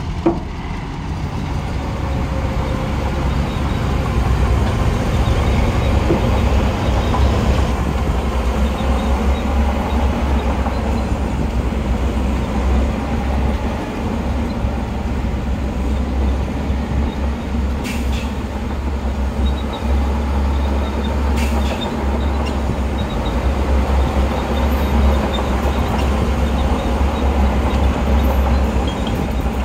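Heavy diesel earthmoving machinery working: a deep, steady engine rumble whose pitch rises and falls a little as the load changes, with two short clicks in the second half.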